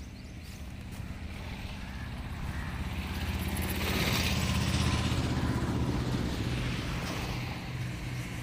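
A motor vehicle engine running steadily, growing louder to a peak about four to five seconds in and then fading again.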